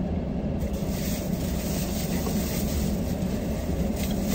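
Steady low rumble of a vehicle's running engine and cabin noise, heard from inside the car, with a brief plastic-bag rustle near the end.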